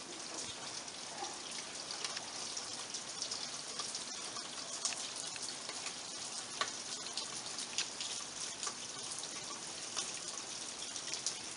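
Steady rain falling, an even hiss with many small drops and drips ticking close by.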